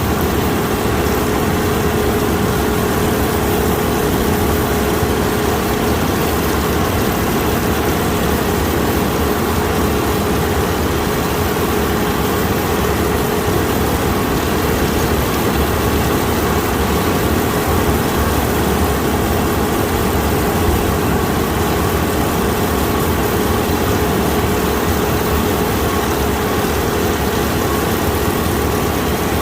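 Kukje KC5130 combine harvester running steadily as it harvests rice, a continuous even engine and machinery drone.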